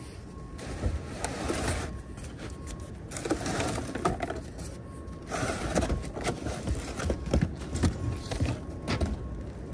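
Cardboard and framed pictures being pulled out and shifted by gloved hands: irregular rustling and scraping with light knocks.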